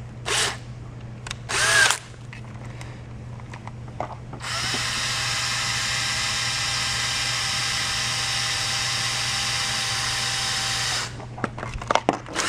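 A small handheld power tool's electric motor starts about four and a half seconds in, runs steadily for about six seconds, then cuts off. Two brief noises come before it.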